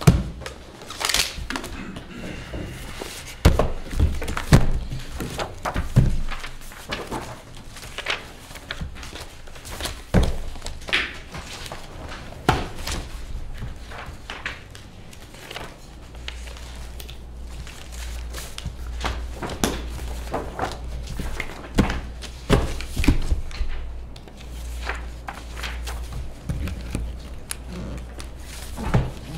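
Paper folders and sheets being handled, leafed through and set down on a table, giving irregular knocks and thunks with rustling between them. A low hum comes in about halfway through.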